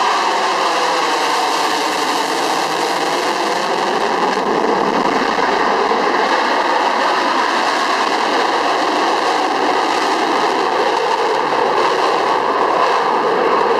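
F-16 fighter's jet engine running at high power with the afterburner lit as the jet flies a slow, nose-high turn: a loud, steady rushing jet noise.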